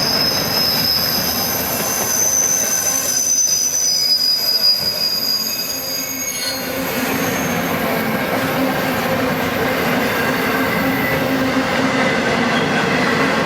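Freight train cars rolling past with steel wheel flanges squealing as they take the crossover. The high squeal fades out about six seconds in, leaving a steady rolling rumble.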